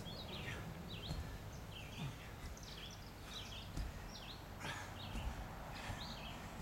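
Small birds chirping repeatedly in short calls over a steady outdoor hiss, with a few soft low thuds.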